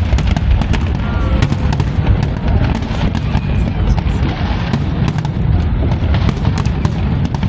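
Aerial fireworks display going off continuously: many sharp bangs and crackles in quick succession over a deep, steady rumble of bursts.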